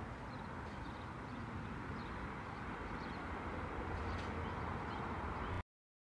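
Outdoor ambience: wind buffeting the microphone with a low, fluctuating rumble and hiss, with short bird chirps now and then. It cuts off abruptly near the end.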